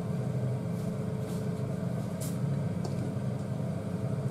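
Steady low electrical hum of a running kitchen appliance, with a few faint light clicks.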